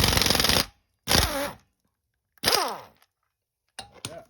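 Impact wrench hammering a tight 1 5/16-inch steering-knuckle nut off, shearing the cotter pin left in it, in three bursts. The last burst winds down in pitch as the wrench spins free, and a couple of light clicks follow near the end.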